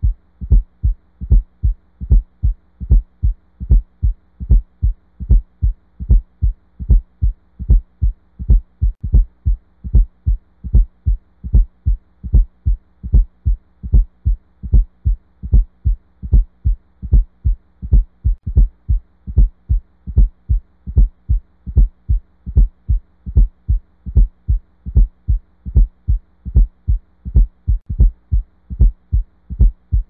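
Heart sounds with an S4 atrial gallop: a repeating "ta-lub-dub" rhythm of low thuds, the fourth heart sound falling just before S1, then S2, then a gap. S4 is the sign of the atria contracting hard against a stiff or hypertrophied left ventricle. A faint steady hum runs underneath.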